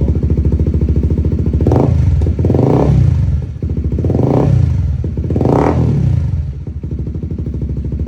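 A Honda CBR150R's single-cylinder engine, breathing through an SC Project exhaust with its silencer insert fitted, idles with a fast, even pulse. It is revved three times in quick blips, each rising and falling in pitch, then drops back to idle.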